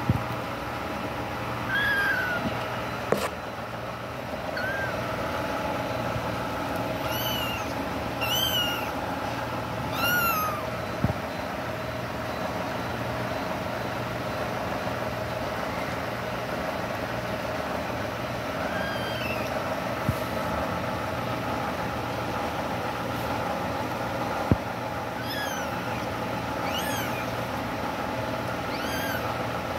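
Young kittens mewing: about nine short, high-pitched mews, several in the first ten seconds and another cluster near the end, over a steady background hum.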